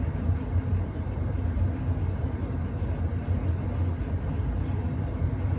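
Steady low background rumble with a faint hiss and a few faint ticks.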